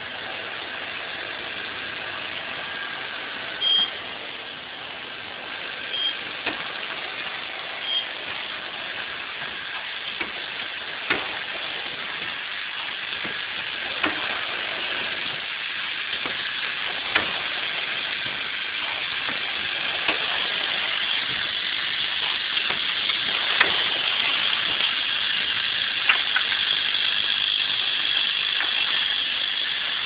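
Automatic pad printing machine with conveyor running, a steady mechanical whir with a sharp clack about every three seconds from its print cycle. A few short high beeps sound in the first several seconds.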